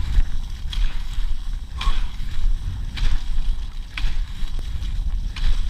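Cross-country skis gliding on snow with a double-pole plant about once a second, each a short sharp scrape or click, over a steady low wind rumble on a chest-mounted action camera.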